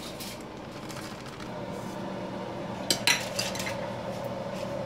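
Kitchen utensils and dishes clattering against each other, with a few sharp clinks about three seconds in, over a steady background hum.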